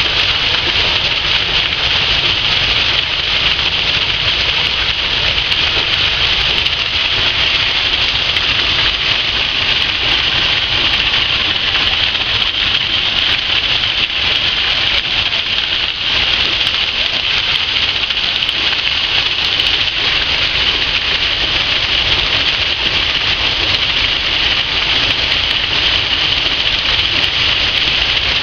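Water splashing and pouring steadily off a turning water wheel, a loud, even rush with no breaks.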